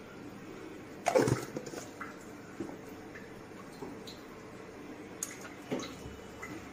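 Spoonful of ghee sizzling faintly as it melts into hot oil in a karahi. A sharp metallic knock about a second in and a few light clicks later.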